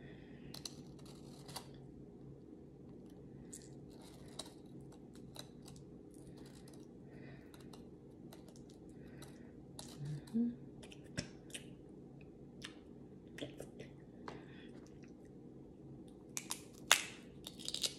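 Cooked shellfish being peeled and cracked by hand: scattered small crackles and snaps of shell, with the loudest cracks near the end.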